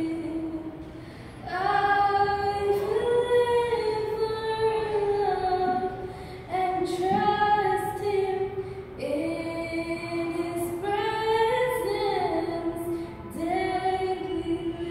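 A girl singing solo without accompaniment, holding long notes that step and slide in pitch, in phrases broken by short pauses.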